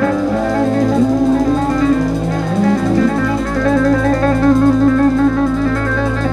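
Live band music: sustained lead notes with vibrato over a steady bass line.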